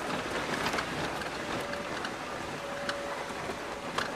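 A 4x4 driving slowly over a rough rocky track: engine running under a steady rumble of tyres on stones, with scattered sharp knocks and rattles throughout.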